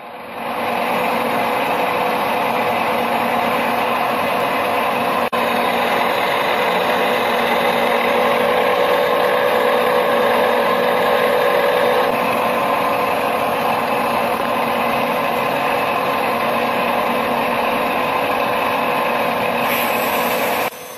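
Gear-cutting machine running steadily, cutting teeth into a metal pump-shaft gear blank: a continuous mechanical whir whose tone changes a little past halfway through.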